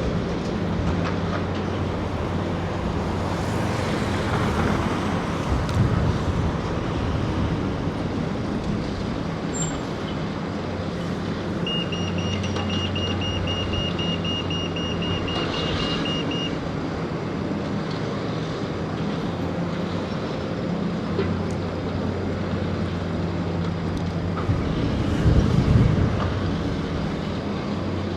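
Road traffic and heavy diesel engines running steadily, with a reversing alarm beeping rapidly, about four beeps a second, for roughly five seconds midway. A louder passing vehicle swells near the end.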